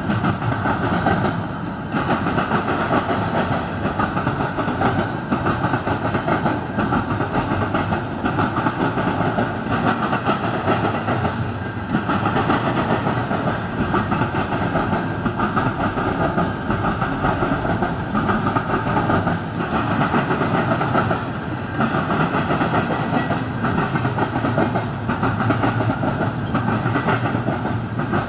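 CN double-stack container freight train rolling past, its wagons' steel wheels running on the rails in a steady, loud rumble that swells and eases slightly as the cars go by.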